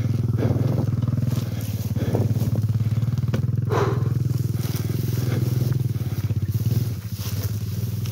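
Honda Tornado's single-cylinder four-stroke engine idling steadily while the bike stands still, dropping a little in level near the end. A few short rushes of noise sit briefly over it.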